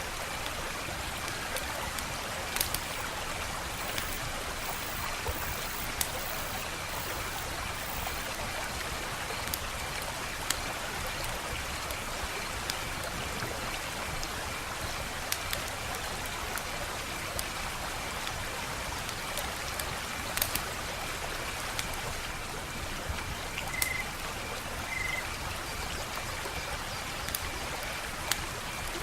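Wood fire crackling: a steady hiss with sharp, irregular pops and snaps scattered throughout.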